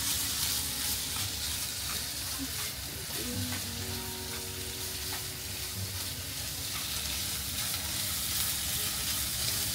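Chicken, onion, carrot and potato pieces sizzling in a frying pan, stirred and turned with a spatula that scrapes against the pan now and then.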